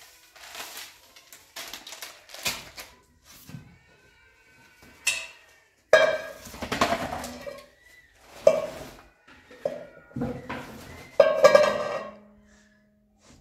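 Metal bowls being handled: knocks and clanks of a large aluminium basin and a small metal bowl, the loudest about six, eight and a half and eleven seconds in, each ringing on briefly. Between them come softer rustles of a plastic packet and hands working dry flour.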